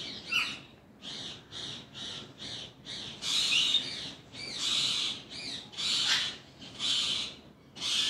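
Alexandrine parakeet giving a run of about a dozen harsh calls, short at first, then longer and louder from about three seconds in.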